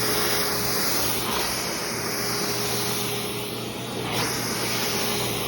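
Philips vacuum cleaner running steadily: a loud, even rush of suction with a constant motor hum.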